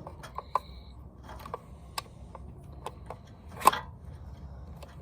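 Scattered plastic clicks and taps from handling the parts of a toy gel blaster, with one louder click about three-quarters of the way through.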